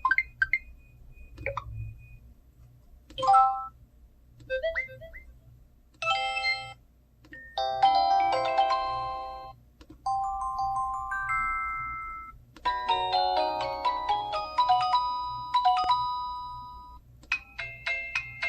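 Samsung SGH-T309 phone's built-in text-message alert tones previewed one after another: short electronic melodies and chimes, each a different tune. The first few last under a second and the later ones run a few seconds, with brief gaps between.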